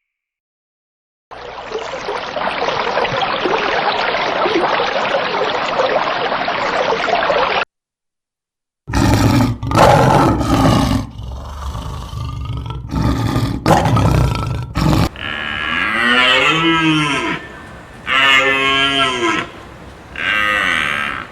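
Cows mooing, several long calls rising and falling in pitch in the second half. Before them come about six seconds of steady hiss, a short silence, then a run of loud, rough noises.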